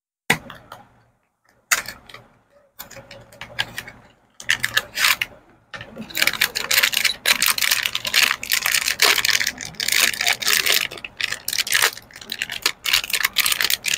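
A few sharp clicks from a cardboard parts box being handled. From about four seconds in comes a long, dense crinkling of a plastic packet being pulled out and unwrapped.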